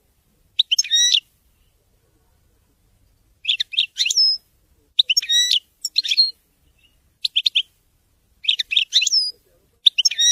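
European goldfinch singing: short bursts of quick, high twittering notes separated by pauses of a second or two.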